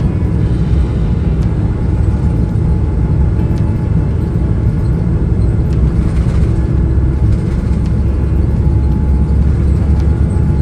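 Boeing 777-300 airliner heard from inside the cabin during take-off, a loud, steady low rumble of engines and airflow.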